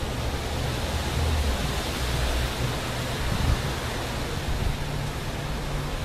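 Wind blowing through leafy bushes: a steady rustling hiss over an uneven low rumble.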